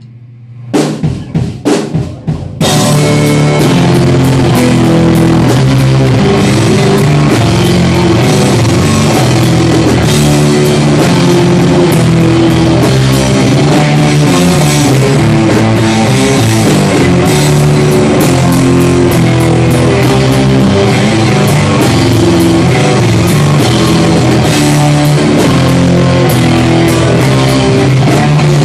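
Rock music with drums and guitar. A few sharp separate hits lead in, then the full band comes in together about two and a half seconds in and plays on steadily at full loudness.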